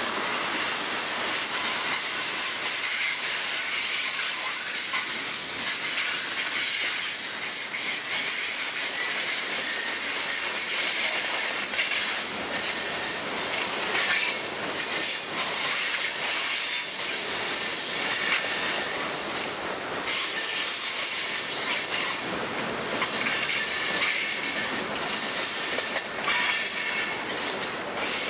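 Freight cars rolling past on steel wheels: a steady rolling rattle with a thin, high-pitched wheel squeal and scattered clacks over the rail joints.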